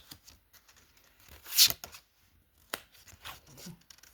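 Tarot cards being handled and laid out on a table: a loud card swish about one and a half seconds in, a sharp click about a second later, and softer rustles between.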